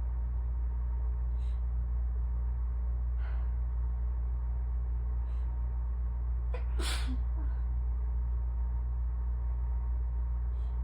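A woman's single soft sneeze about seven seconds in, after a few faint catching breaths, over a steady low hum. The sneeze is weak because asthma keeps her from filling her lungs during an allergy attack.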